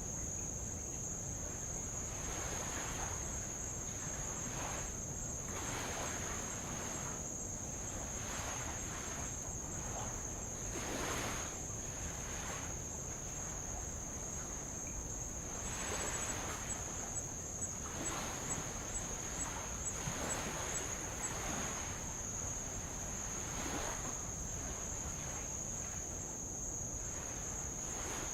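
Insects trilling steadily at a high pitch, with light waves washing and lapping on old lava rock every second or two. A brief run of ticks, about two a second, comes midway.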